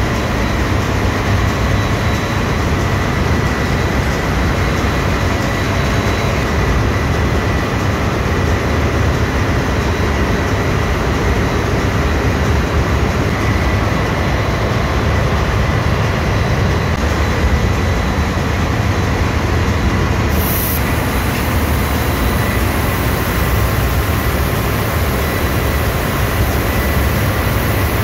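Steady, loud drone of a ship's engine room: running diesel engines and machinery, with a faint steady high whine above the rumble.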